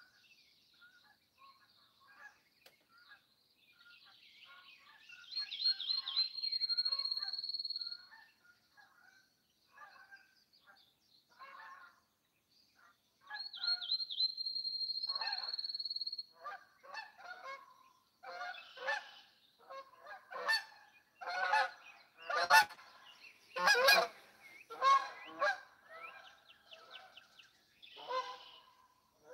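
Geese honking in repeated short calls, growing denser and louder past the middle. In the first half a high, drawn-out bird note sounds twice, each time after a few quick stuttered notes.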